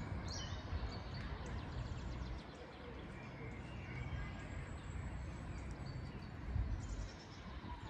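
Birds singing in the park trees, with short chirping trills at the very start and again near the end, over a steady low rumble.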